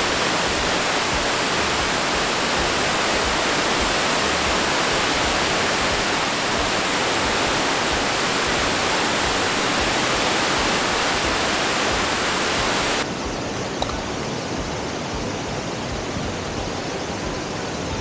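Yudaki Falls, a 70-metre cascade sliding down a rock face, making a steady rushing roar of falling water; the flow is high. About 13 seconds in the rush drops a little and sounds duller.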